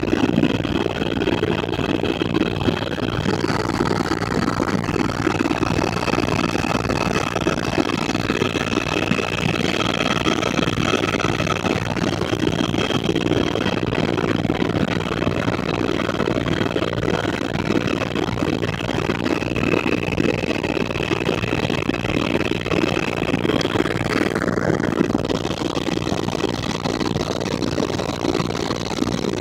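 Helicopter in flight, heard from inside the cabin: a steady drone of engine and rotor with a thin high whine over it that shifts slightly in pitch and drops away about 25 seconds in.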